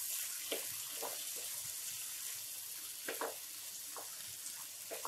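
Stir-fried vegetables and sauces sizzling in a nonstick frying pan while a spatula stirs them. There is a steady hiss, with a few short scrapes of the spatula against the pan.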